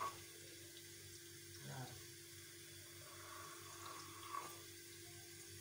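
Quiet room tone: a faint steady hum and hiss, with two soft brief sounds, one just under two seconds in and one about four and a half seconds in.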